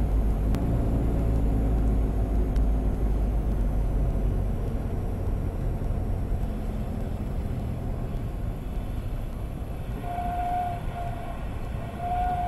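Cessna Skyhawk cabin noise on short final and touchdown: the single piston engine at reduced power with wind over the airframe, easing off gradually. Brief pitched squeals come near the end as the plane settles onto the runway.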